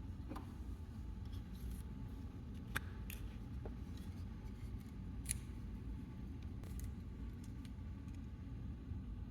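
Small, irregular clicks and snips from hand work on a plastic toy, over a steady low hum.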